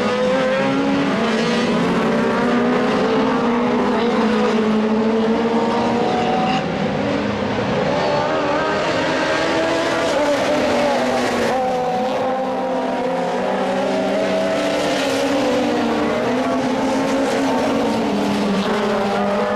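Several Super 1600 rallycross cars racing at once, their 1.6-litre engines revving hard. The overlapping engine notes rise and fall as the cars work through the corners.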